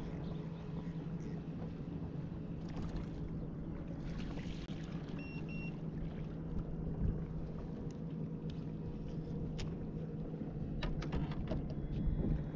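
A steady low hum with overtones under wind and water noise. About five seconds in come two short high beeps, and near the end a quick run of clicks.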